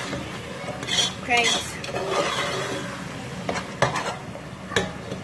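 Metal spoon stirring thick tomato stew paste in a metal saucepan, scraping along the bottom, with a few sharp clinks of the spoon against the pot in the second half.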